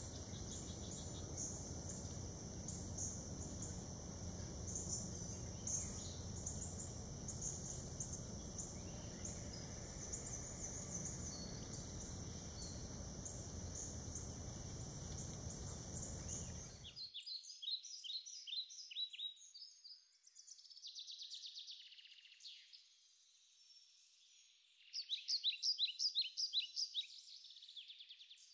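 Natural ambience: a steady high insect drone with scattered bird chirps over a low background rumble. About two-thirds of the way through, the rumble and drone cut off abruptly, leaving bird songs alone, with a loud, fast repeated trill near the end.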